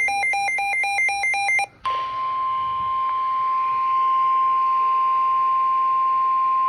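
The end of an Emergency Alert System SAME digital header burst, a rapid warbling data signal. After a short break comes the steady single-pitch 1050 Hz NOAA Weather Radio warning alarm tone over faint radio hiss. The tone announces that a new warning message follows.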